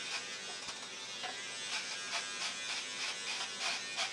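Remington electric beard trimmer buzzing steadily as it cuts through beard hair, with short louder rasps several times as it is drawn through the beard.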